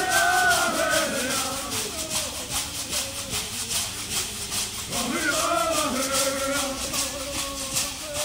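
Stomp dance: shell shakers keep a steady, fast rattling rhythm while a male leader sings a phrase at the start and another about five seconds in, ending in a long held note.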